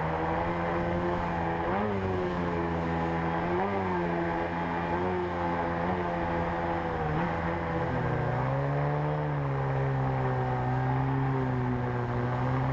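Water-jet outboard motor of an inflatable jet boat running hard upstream through shallow rapids, its pitch wavering briefly about two and four seconds in and dropping about eight seconds in before picking up again. Rushing river water underneath.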